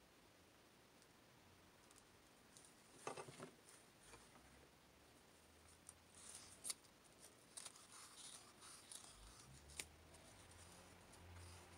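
Faint crafting handling: a quick snip of scissors about three seconds in, then soft rustles and light ticks as yarn is wound around a folded cardstock cone.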